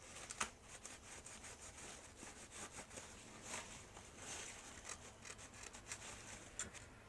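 An old sticker being rubbed and scraped off the plastic body of a 1989 Cobra Fang II toy helicopter, its glue softened with lighter fluid. Faint, irregular scratchy strokes with a few sharper ticks.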